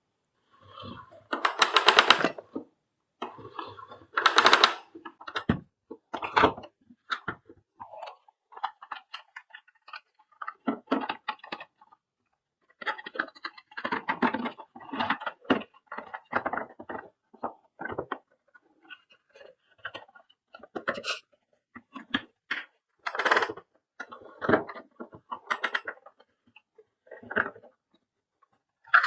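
Irregular clicks, knocks and rubbing of hands working on a vacuum cleaner's plastic cord-reel parts and power cable, with no steady rhythm.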